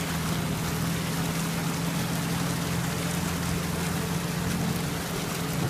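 Land Rover Series 4x4 engine running at a steady, unchanging pitch as the vehicle drives through flooded trail water, with a constant wash and splash of water around the tyres.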